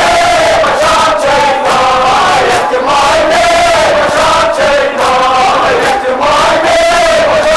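A group of voices chanting a Kashmiri marsiya, a mourning elegy, together in short sung phrases with brief breaks about once a second.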